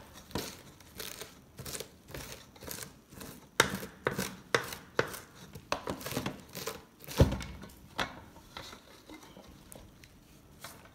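Kitchen knife chopping leafy green herbs on a wooden cutting board, in quick irregular knocks of the blade against the board, with one louder knock about seven seconds in. The strokes thin out and grow fainter near the end.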